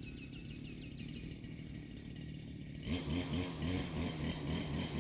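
A worker's engine-driven machine starts up abruptly about three seconds in and runs with a wavering, pulsing note, over a low steady hum.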